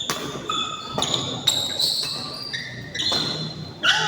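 Badminton rally on an indoor court: several sharp racket strikes on the shuttlecock among short, high squeaks of shoes on the court floor.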